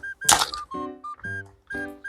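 Background music of short, bouncy repeated notes, with one brief noisy hit about a third of a second in.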